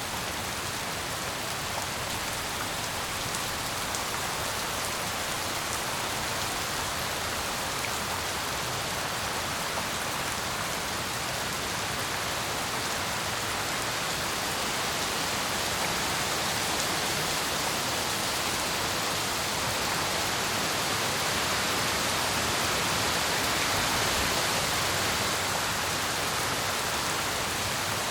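Steady tropical rain falling: a continuous hiss of rain on surfaces that swells gently in the second half.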